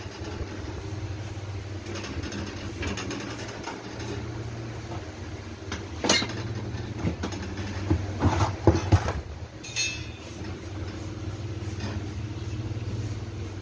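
A steady low machine hum, with a few sharp metallic knocks and clatters about six seconds in and again around eight to nine seconds.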